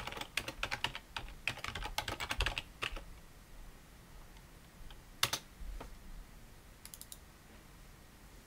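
Typing on a computer keyboard: a quick run of keystrokes for about three seconds, then a single louder click a little over five seconds in and a few faint clicks near seven seconds.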